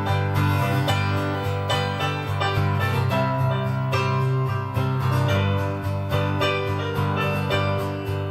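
Live band playing an instrumental break of a country-rock song, led by a strummed acoustic guitar in a steady rhythm over sustained low notes, with no singing.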